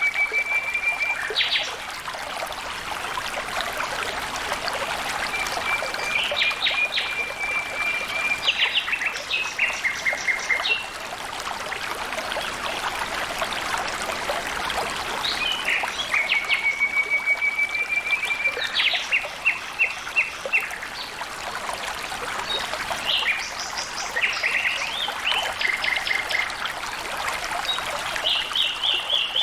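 Steadily trickling, flowing water of a stream, with a bird singing over it every eight to ten seconds. Each phrase is a held, even trill followed by a quick run of sharp, higher notes.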